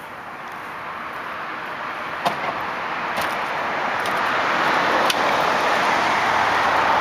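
A road vehicle approaching, its tyre and road noise rising steadily louder, with a few faint sharp knocks.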